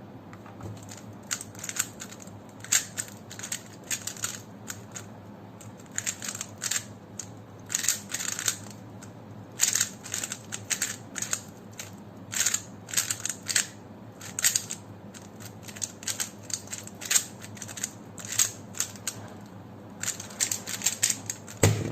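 Plastic speedcube being turned: quick clicking layer turns in irregular bursts, the sound of the cube being scrambled.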